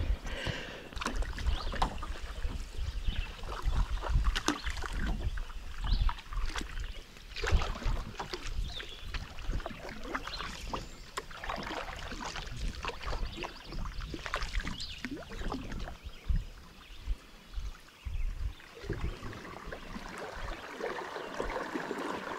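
A wooden canoe being paddled through calm water: irregular paddle splashes and drips, with sharp little knocks on the hull and dull low thumps.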